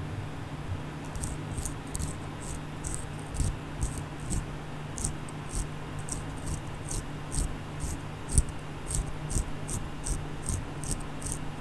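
DJI Mavic Mini brushless drone motor turned back and forth by hand, giving short gritty rasps at about two to three a second, starting about a second in. The scraping is the sign of sand caught inside the motor that could not be cleaned out.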